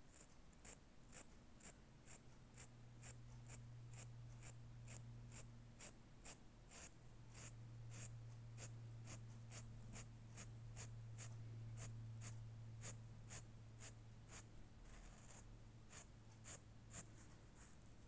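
Textile marker's felt tip scratching over printed fabric in short, quick strokes, about two a second, faint, over a steady low hum.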